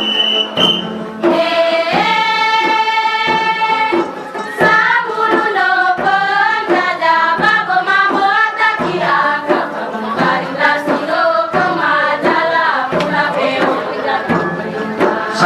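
Group singing a dance song over regular percussion strikes. About two seconds in, one voice holds a long note, then the voices sing together in a wavering melody.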